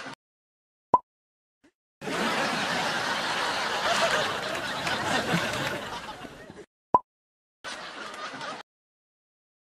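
Laughter running for about four and a half seconds, with shorter, quieter snatches of it before and after. Brief sharp blips come about a second in and again near 7 seconds.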